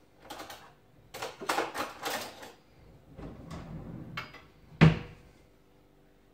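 Kitchen clatter: a run of clicks and scrapes as things are handled, then one sharp knock with a short ring just under five seconds in.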